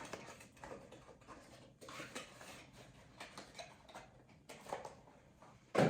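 Small items and packaging being handled: light rustling with scattered soft clicks, and one louder clack near the end.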